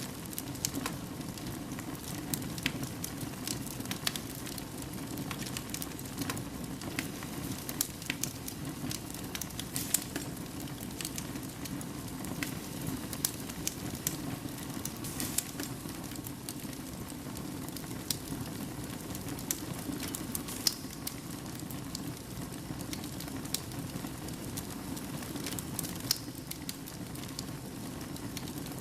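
Fire burning in a fireplace: a steady low rush of flame with frequent, irregular sharp crackles and pops.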